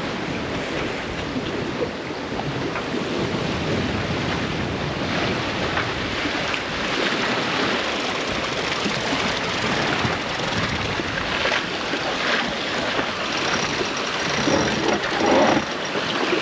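Water rushing and splashing along the hull of a sailboat running downwind under sail, a steady wash with wind buffeting the microphone. A brief faint pitched sound comes through about fifteen seconds in.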